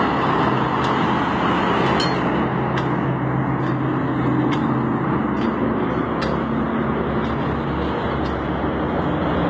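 A steady motor hum under constant noise, with a few light clicks.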